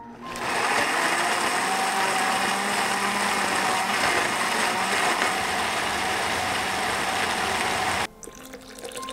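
Countertop blender running steadily, grinding chillies, onion and garlic into a thick seasoning paste; it starts just after the beginning and cuts off suddenly near the end.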